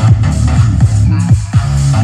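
Loud electronic dance music with a heavy bass line and a thudding kick drum about twice a second, played at full volume through a Sony MHC-M60D mini hi-fi system. The beat drops out briefly about one and a half seconds in.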